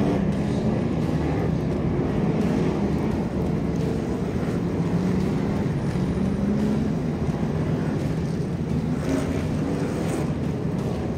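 Short-track stock cars running laps together, a steady, loud engine drone whose pitch drifts slightly up and down as the cars go around.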